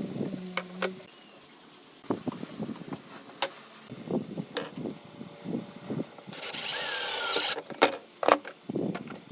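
Woodworking handling sounds: scattered knocks and clicks of wood and tools being set down and worked. About six seconds in, a power tool runs briefly for just over a second.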